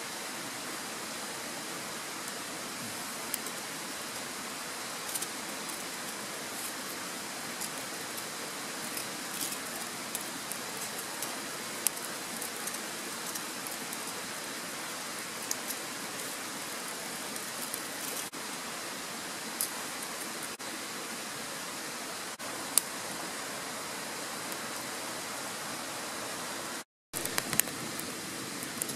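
A steady rushing hiss with scattered small snaps and clicks as twigs and shavings catch. Near the end, after a brief dropout, a wood fire crackles densely in a stainless-steel firebox.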